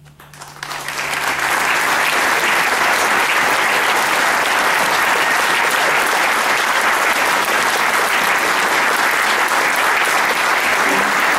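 Audience applause rising over the first two seconds and then holding steady, as the low notes of a concert band's final chord die away at the start.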